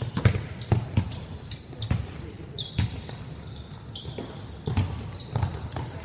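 Basketball bouncing on a hardwood gym floor during play: irregular sharp thuds, mixed with players' footsteps and short high squeaks, in a large echoing hall.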